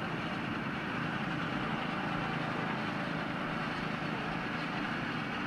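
Small go-kart engines running steadily on the track.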